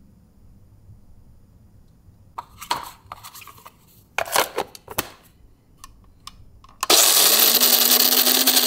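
A few clicks and knocks as the hopper lid is handled on a Cuisinart Supreme Grind automatic burr mill. About seven seconds in, its motor starts and runs steadily, grinding whole coffee beans.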